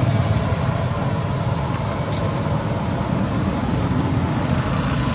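Steady low rumble of outdoor background noise, with a brief faint crackle about two seconds in.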